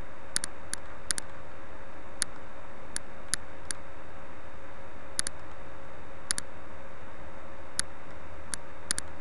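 Computer mouse button clicking at irregular intervals, a mix of single clicks and quick double-clicks, over a steady background hum.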